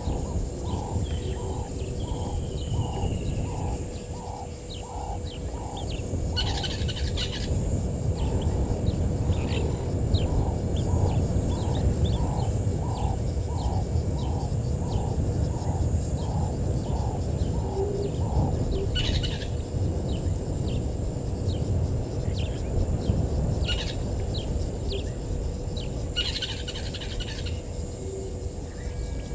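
Birds calling. One bird repeats a low note about twice a second for roughly the first eighteen seconds, while others give short high chirps and three brief bursts of louder calls. A steady high hiss and low rumbling background noise run underneath.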